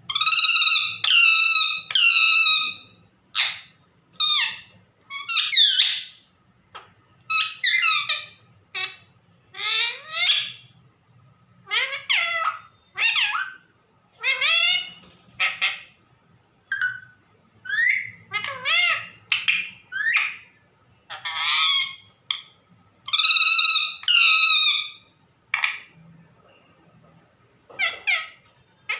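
Pet parrot calling over and over in loud, short, harsh calls, some with rising or falling pitch, in the speech-like calling of a talking parrot.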